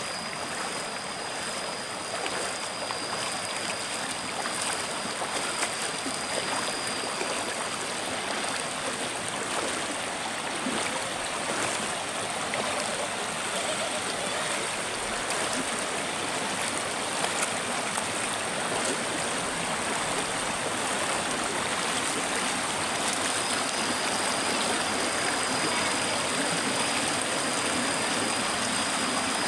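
Shallow rocky river rushing steadily over stones and boulders, growing slightly louder toward the end. A faint, thin, steady high-pitched tone is heard through the first several seconds and again near the end.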